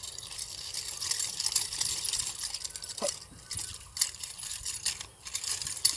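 Two chain-linked nunchaku spun together, their metal chains jingling and rattling in a fast run of small clinks over a swishing rush, with a few sharper clacks about halfway and near the end.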